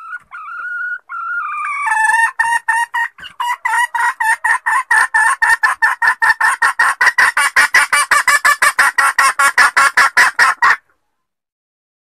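Red junglefowl hen calling: a couple of drawn-out, wavering notes, then a long fast run of clucks, about four to five a second, that cuts off suddenly near the end. It is the hen's call used as a lure to draw in wild cocks.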